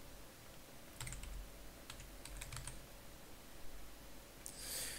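Computer keyboard keys pressed a few at a time, a handful of sharp clicks in the first half as shortcuts are typed; a short soft hiss near the end.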